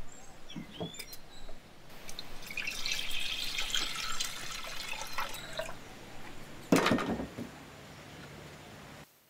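Water poured from a terracotta clay kettle into a clay pot, a splashing stream lasting about three seconds. About seven seconds in comes a sharp knock, the loudest sound, followed by a few lighter ones.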